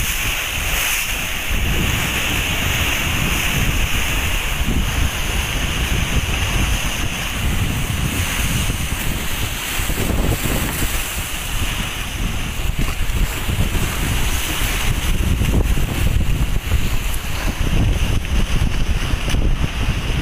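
Typhoon wind buffeting the microphone in gusts over the steady rush of storm-driven waves on a rough sea.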